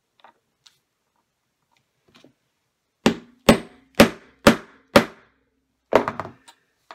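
A hammer striking a metal snap-setting tool five times, about two blows a second, setting a button snap so its post turns over. A brief clatter of knocks follows near the end.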